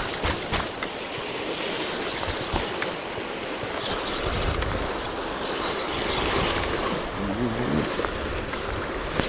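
Sea surf washing over the rocks, a steady rushing noise, with a few faint clicks.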